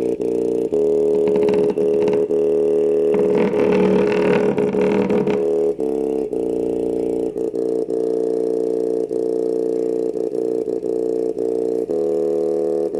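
A bare woofer driver running off a JBL Charge 3 speaker's amplifier, playing sustained buzzy bass tones that change pitch a few times. For about two seconds near the middle a harsher rattle joins in.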